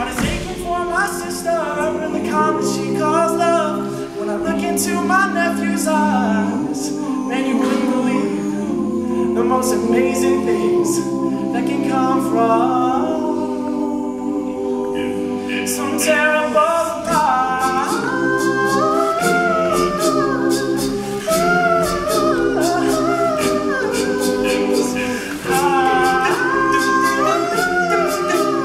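All-male a cappella group singing live: a lead voice over sustained low backing voices, with a steady beat of vocal percussion.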